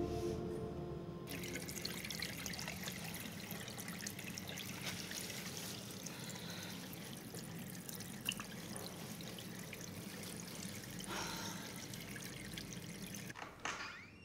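Water running from a tap into a sink, a steady splashing trickle that cuts off suddenly near the end. Faint background music fades out at the start.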